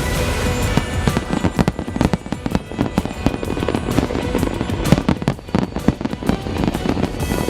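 Fireworks going off in rapid, irregular bangs and crackles, with music playing underneath.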